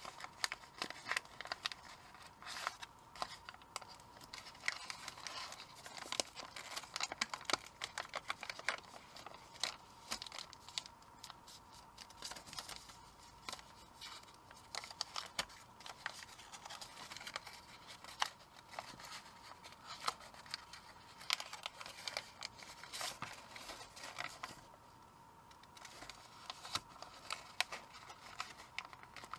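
Origami paper crinkling and rustling as hands fold and crease it, with many small, irregular sharp crackles and snaps. There is a short lull a few seconds before the end.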